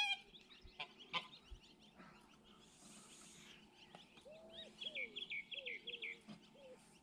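Goslings peeping, with soft low calls from the adult geese. A quick run of high peeps and curved lower calls comes in the second half, after a couple of faint clicks about a second in.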